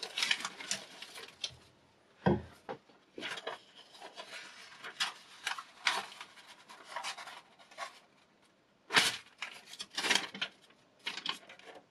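Sheets of paper rustling and crinkling as they are handled by hand, rolled and crumpled, in irregular bursts. There are two dull knocks, about two seconds in and about nine seconds in.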